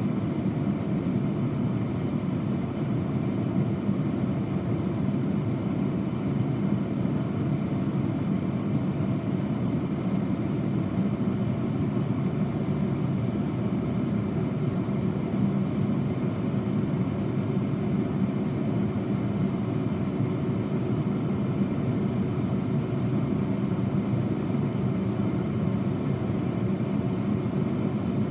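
Air fryer running: its fan makes a steady low whir with a faint hum of constant tones over it.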